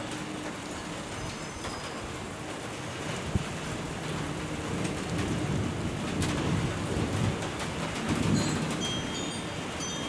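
Steady rain with a low roll of thunder that builds through the second half and peaks about eight seconds in. A single sharp tap comes a few seconds in.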